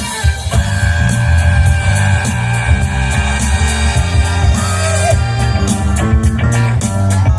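Loud rock music playing, with held notes over a steady bass line.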